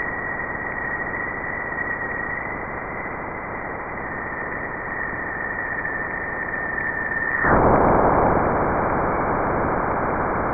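NASA sonification of the plasma waves that the Juno probe detected as it passed through Jupiter's magnetic field. A hiss runs under a steady, high, slightly wavering whistle. About seven and a half seconds in, the whistle stops and the hiss turns abruptly louder.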